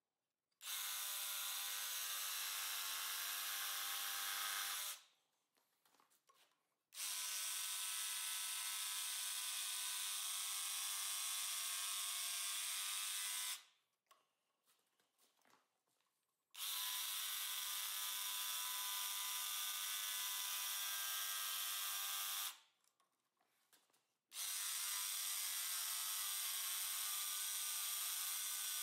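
DeWalt XR cordless jigsaw running in a Speed-Cope coping jig, cutting a coped end on a baseboard. It runs in four steady stretches of several seconds each, stopping briefly three times in between.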